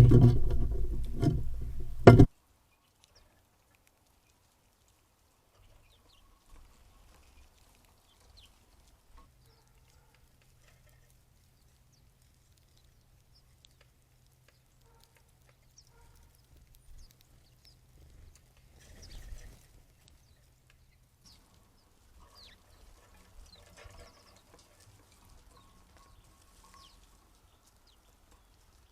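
A loud, pitched sound stops suddenly about two seconds in. After that it is almost silent, with a few faint, high bird chirps and a low hum.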